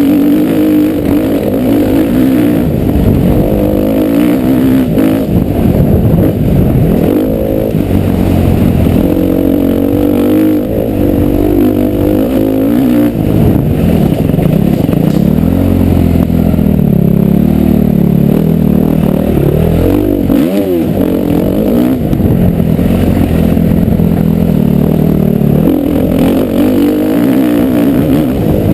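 Motocross bike engine revving hard around the track, its pitch rising and falling with throttle and gear changes, with a sharp drop and climb in revs about twenty seconds in.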